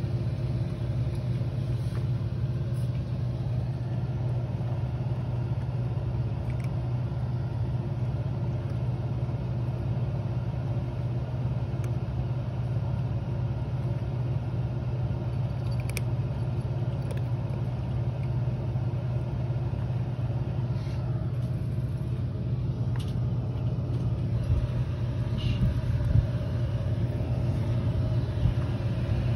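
Steady low hum and whoosh of an electric air cooler's fan running, with a few faint clicks over it.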